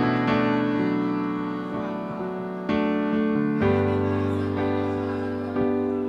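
Electric keyboard playing slow, sustained chords, a new chord struck every one to three seconds and each fading away, with a deeper bass note coming in about halfway through.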